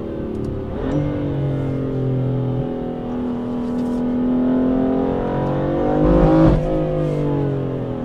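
BMW M4's 3.0-litre twin-turbo inline-six with a decat Milltek exhaust, heard from inside the cabin while driving. The engine note steps up about a second in and eases off through a bend. It then rises under acceleration to its loudest point about six seconds in, where the pitch breaks and drops sharply at a gearshift.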